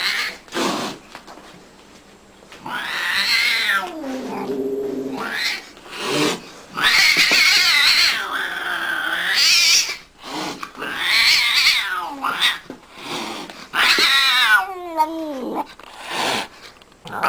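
An angry domestic cat caterwauling: a run of long, drawn-out yowls, some lasting a few seconds, that rise and fall in pitch with short breaks between them.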